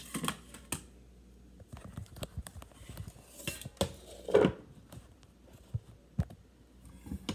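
Handling noise as a phone is propped up on a kitchen counter: scattered knocks and clatter of containers and the phone being shifted about, with one louder clunk about four and a half seconds in.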